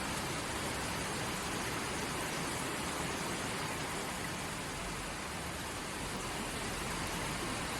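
River water rushing and splashing in a steady, even flow.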